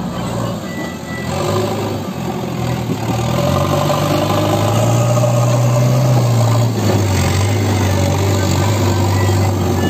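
JCB 3DX backhoe loader's diesel engine working the front loader. Its note rises and gets louder about three seconds in as the bucket is raised, then holds high with a brief dip near the end.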